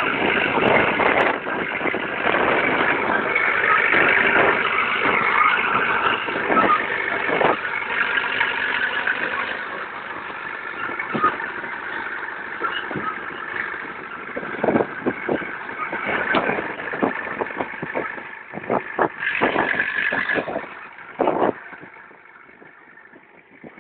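Caterpillar D2 crawler tractor's diesel engine running steadily as the machine travels, fading over the last few seconds as it moves away.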